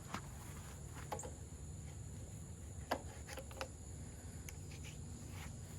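Quiet background with a few faint, sharp clicks and taps scattered through it, from handling the new handlebar grip and tools.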